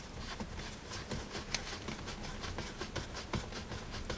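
Light, irregular clicks and taps of hands and a tool handling parts of an open video recorder's chassis, several small knocks a second.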